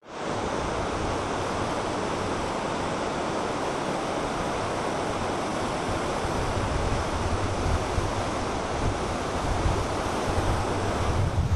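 Fast, silt-laden mountain river rushing over rapids, a steady even roar, with gusts of wind buffeting the microphone in the later seconds.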